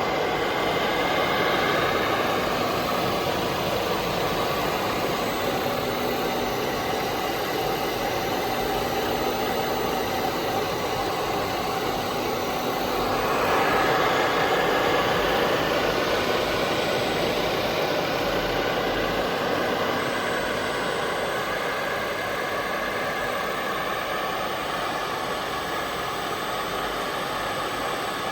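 STUDER S30-1 universal cylindrical grinder running: a steady mechanical hum and hiss with several held tones. About halfway through, the tones shift and the sound gets a little louder, then it settles again.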